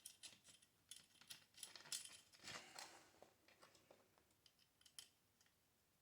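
Faint, scattered clicks and light scrapes of small metal parts being handled as a screw is started into a gas water heater's burner access plate.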